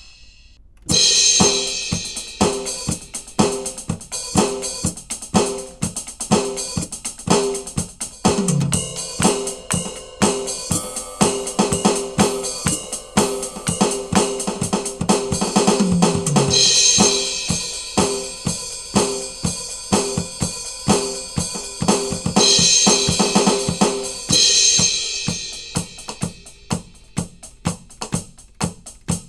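Aroma TDX-21 electronic drum kit played on its 'Studio Kit 1' preset: a steady beat of kick, snare, hi-hat and cymbals, starting about a second in. There are two tom fills, about a third of the way through and just past halfway, each followed by a cymbal crash.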